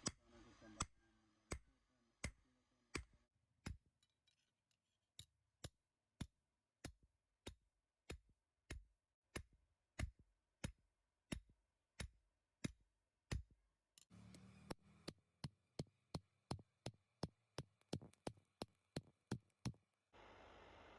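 Hammer blows flattening a heated iron window bar on an anvil, each a sharp metallic strike. They come in a steady rhythm of about one every 0.7 seconds, then quicken to about three a second from midway on.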